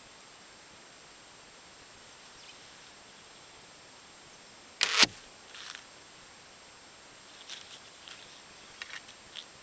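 Hazel sapling flatbow, 45 lb at 27 inches, shot once: a sharp double crack of the string's release about five seconds in, followed by a few faint clicks near the end.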